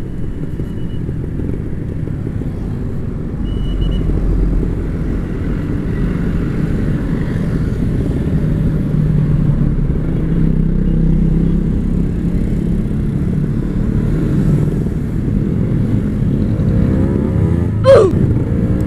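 Kawasaki Ninja RR 150's two-stroke single-cylinder engine running steadily under way. A brief, sharp rising-and-falling sweep comes near the end.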